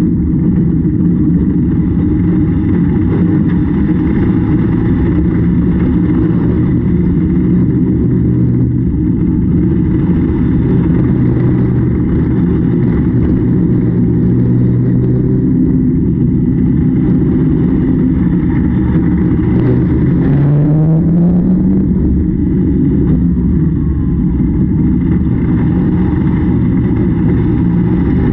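Engine of harvest machinery running steadily under load, with its pitch rising twice as it revs up, once about two-thirds of the way in and again at the very end.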